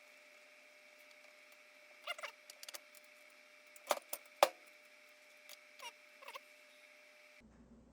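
Scattered light clicks and a few short squeaks from hand work on the portable bandsaw's tension-wheel mechanism as its screws are tightened, over a faint steady hum. The sharpest click comes about four and a half seconds in.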